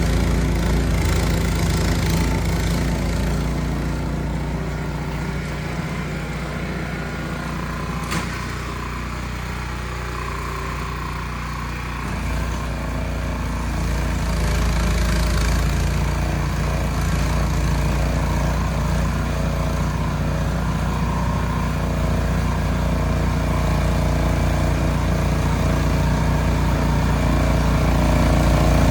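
Ariens Platinum SHO 24-inch two-stage snow blower engine running steadily, dropping somewhat quieter for several seconds before rising again.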